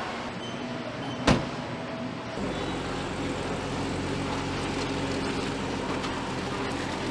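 A car's boot lid slams shut with a single sharp thud about a second in. Then, from about two and a half seconds, a BMW M440i's 3.0-litre turbocharged inline-six runs with a steady low hum as the car pulls away.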